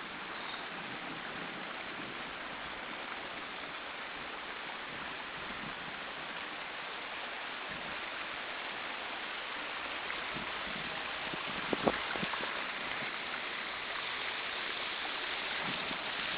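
Rainwater runoff rushing steadily down a narrow channel through grass, with a couple of quick knocks about two-thirds of the way through.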